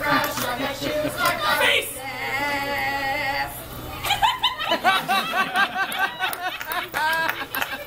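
A performer's voice projecting from an open-air stage in an exaggerated, sing-song delivery, holding one long drawn-out note from about two seconds in.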